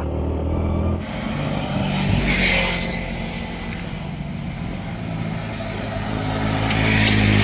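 Motorcycle engine running at a steady cruising speed under wind and road rush, with two louder whooshes, about two and a half seconds in and again near the end.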